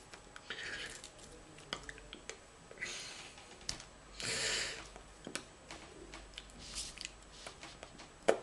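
Soft rustles of hands brushing against each other and a knit sweater, with scattered light clicks. A short puff of breath through pursed lips about four seconds in is the loudest rustle, and a sharp tap comes just before the end.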